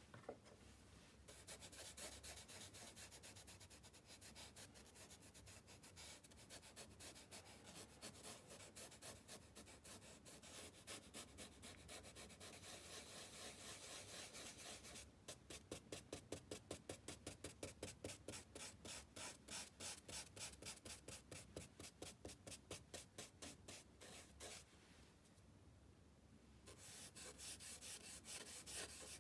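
Faint rubbing of a brush scrubbing charcoal on sketchbook paper. Through the middle it goes in quick, even back-and-forth strokes of about four a second, with a short pause near the end before the rubbing resumes.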